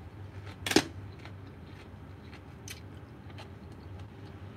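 A crisp crunch as a slice of raw cucumber is bitten, a little under a second in, followed by a few faint crunches of chewing.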